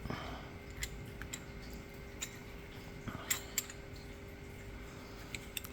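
Lock pick and tension tool working inside an ASSA D12 lock cylinder: faint, scattered metallic clicks and ticks, a handful over a few seconds, as the pins are set.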